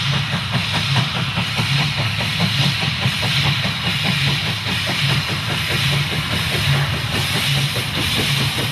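Two steam locomotives double-heading a passenger train, chuffing as they pass: a fast, even beat of exhaust strokes over a steady rumble and hiss.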